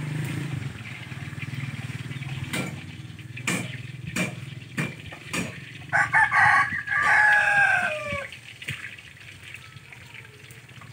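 A rooster crows once, a drawn-out call about six seconds in whose last part falls in pitch; it is the loudest thing here. Before it come a few sharp knocks.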